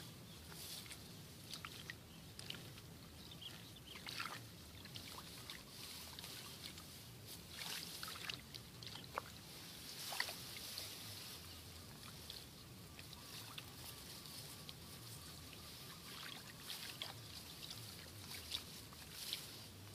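Hand-weeding in a rice paddy: irregular faint rustling and plucking as grass is pulled from among the rice plants, with scattered small sharp crackles and splashes.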